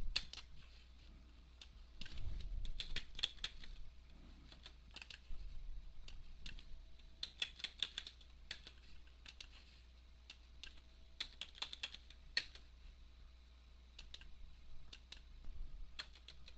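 Typing on a computer keyboard: short, irregular runs of key clicks with pauses between them, over a faint steady low hum.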